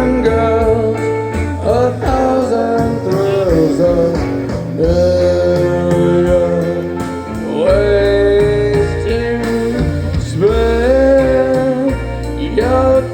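Live rock band playing a slow ballad: long held melody notes that glide from one pitch to the next over a stepping bass line.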